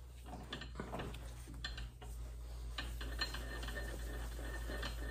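Scattered light metal clicks and clinks of tooling being handled while a boring bar is set up on the mill, over a steady low hum.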